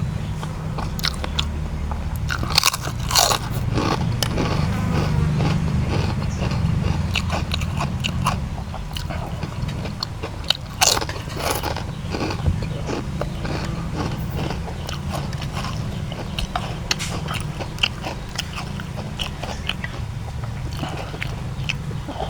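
Kerupuk crackers being bitten and chewed close to the microphone: irregular sharp crunches throughout, loudest a few seconds in and again about halfway, over a steady low hum.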